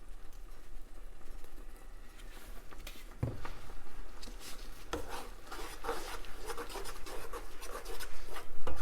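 Kitchen utensils scraping and knocking while tomato sauce is seasoned in a pot: faint rubbing, a knock about three seconds in and another about two seconds later, then steady scraping and clicking.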